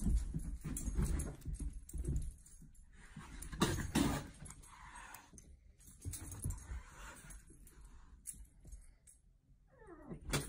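A dog and cats scuffling on a carpeted floor: irregular soft bumps and rustles, with jingling.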